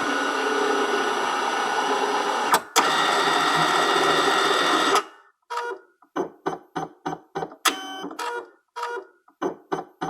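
Document scanner running: a steady mechanical whir with a fixed hum for about five seconds, broken by a click about two and a half seconds in. Then a quick run of short whirring pulses, about two or three a second.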